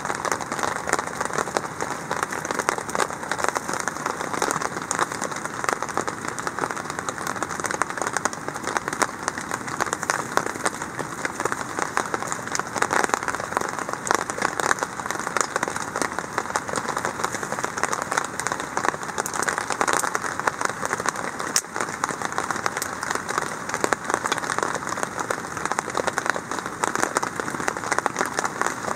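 Steady rain falling on a tarp shelter: a constant hiss of dense, fine drop hits.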